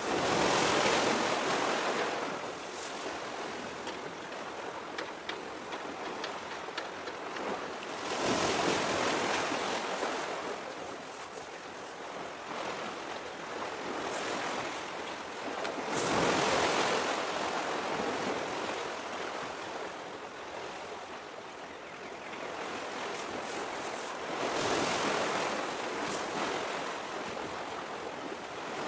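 Sea waves washing against a rock breakwater, surging up and falling back about every eight seconds, four times, over a steady background wash.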